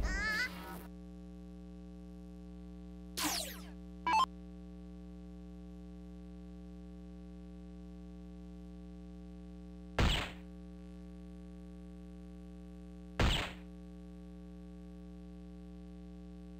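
Arachnid electronic dartboard machine: a falling electronic sweep and a short beep about three to four seconds in, then two soft-tip darts striking the board about three seconds apart, each with a sharp hit and a short electronic hit effect. The two darts score 100 between them. A steady electronic hum from the machine runs underneath.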